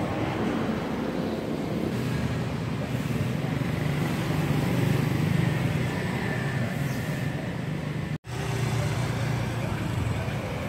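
Street traffic: a steady road rumble from passing cars and motorbikes, swelling about four to five seconds in as a vehicle goes by. It drops out for an instant about eight seconds in.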